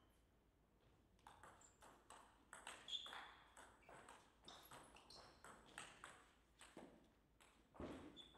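Table tennis rally: a celluloid-type ball ticking off the bats and the table in quick alternation, starting about a second in. A heavier thump comes near the end.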